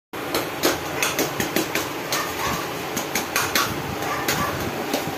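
Stainless steel bowls and utensils clinking and knocking at irregular intervals, several sharp clicks a second, over a steady low background hum.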